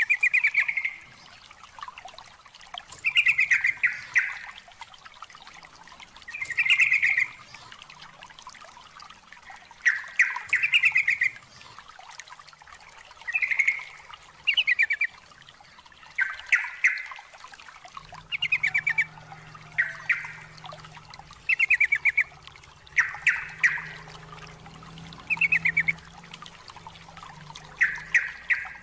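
Yellow-vented bulbul (trucukan) song: short, loud phrases of fast rattling, chattering notes, repeated every two to three seconds.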